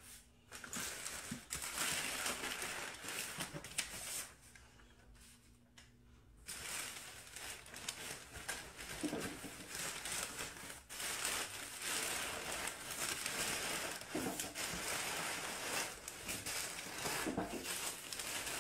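Crumpled brown kraft packing paper rustling and crinkling as it is handled and pulled aside inside a cardboard box, with a lull of about two seconds a few seconds in.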